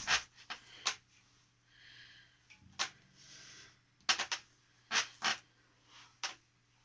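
Scattered sharp clicks and knocks, about seven of them, with two soft breath-like hisses between them over a faint steady hum; no instrument notes ring out.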